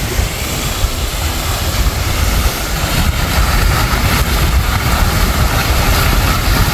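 Steady rushing and splashing of a fountain's falling water, with a heavy, uneven low rumble underneath.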